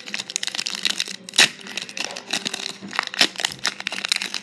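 Wrapper of a football trading card pack being torn open and crinkled, a run of sharp crackles with two louder snaps.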